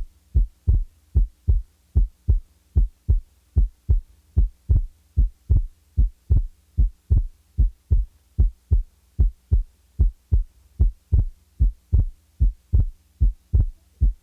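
Heart sounds heard through a stethoscope: a steady lub-dub rhythm of first and second heart sounds. The second sound is made by the aortic and pulmonic valves closing, and it is split on inspiration and single on expiration, a normal physiological split. A faint steady hum lies underneath.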